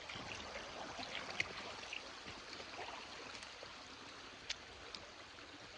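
Small woodland creek trickling and flowing, a steady faint rush of water, with a couple of sharp clicks about one and four and a half seconds in.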